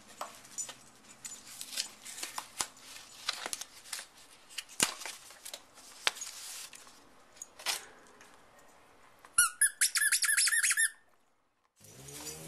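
Plastic and cardboard packaging crackling and tearing as it is opened. About nine and a half seconds in, the squeaker inside a Pogo Plush dog toy squeaks rapidly, about five squeaks a second for a second and a half.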